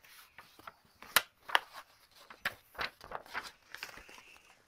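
Paper pages of a large picture book being turned and handled: a run of crisp crinkles and rustles, the sharpest about a second in.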